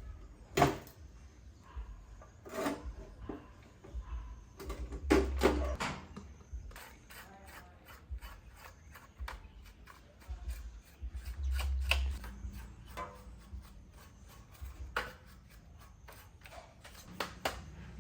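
Irregular knocks, clicks and rubbing of objects being handled, with a few heavier low thumps.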